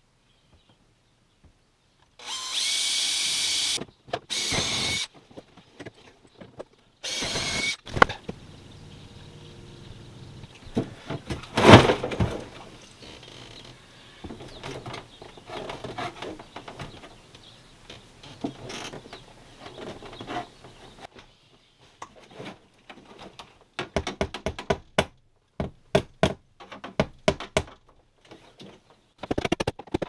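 Makita cordless drill with a twist bit running in short bursts, about two, four and seven seconds in, drilling holes for wall anchors. Then come scattered knocks and clicks of handwork, with a sharp knock about twelve seconds in and a run of quick clicks near the end.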